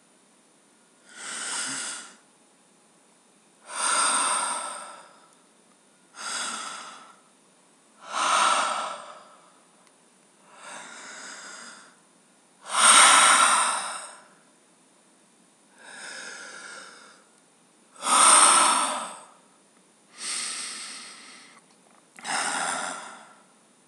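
A person breathing deeply and audibly right at the microphone: about ten long breaths, one every two seconds or so, some much louder than others.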